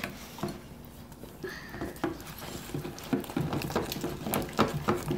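Plastic spoons stirring thickening black slime in glass bowls, with quick irregular clicks and scrapes of spoon on glass, busier from about two seconds in. The borax is cross-linking the glue and iron oxide into slime as it is mixed.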